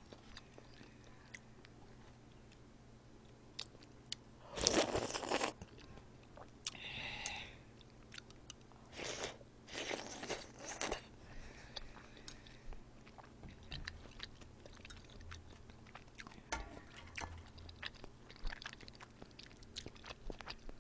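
Close-up eating sounds: a few loud slurps of udon broth near five and ten seconds in, between stretches of quiet chewing with small mouth and utensil clicks.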